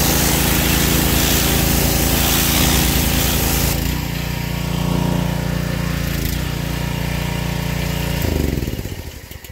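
Wilks USA TX625 petrol pressure washer's 7 hp four-stroke engine running while the turbo nozzle blasts water onto concrete paving with a loud hiss. About four seconds in the spray stops and the engine runs on alone, then it winds down and stops near the end.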